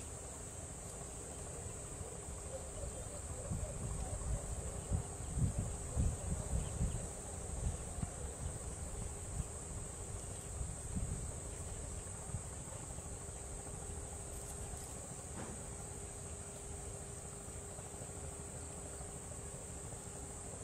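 Steady high-pitched insect chorus, like crickets, running on evenly, with low rumbles and knocks in the first half.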